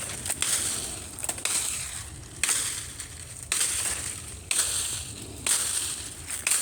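Dry sticks and leaf litter crunching and cracking in sharp strokes, about one a second.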